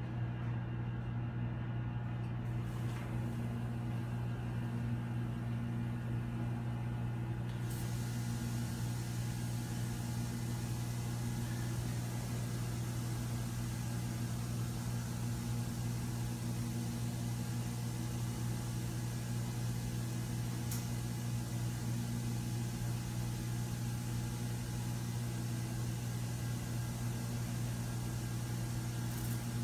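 Steady electric motor hum with a low drone and fainter overtones, from the high-pressure misting pump of a greenhouse evaporative cooling system running while it sprays mist at about 150 psi. A faint hiss comes in about eight seconds in.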